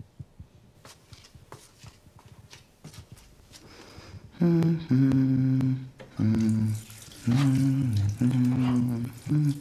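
A man's voice humming a tune in long held notes that step up and down, starting about four seconds in. Before it come a few soft clicks and taps.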